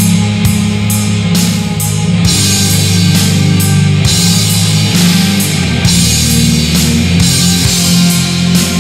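Death metal played by a band: heavily distorted guitars hold low, sustained chords over drums, with repeated cymbal crashes.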